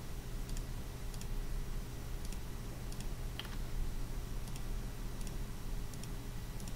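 Scattered, faint clicks of a computer mouse, about eight spread unevenly, over a steady low electrical hum.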